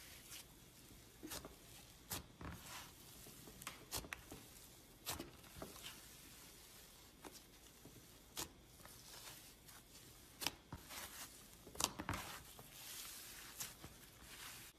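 Hands stretching and kneading a fluffy, stringy slime: irregular sticky pops and crackles over a soft tearing hiss as the strands pull apart. The loudest pop comes about twelve seconds in.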